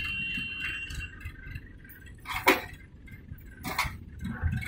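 Two sharp metallic clinks a little over a second apart, the first the louder, over a faint low rumble.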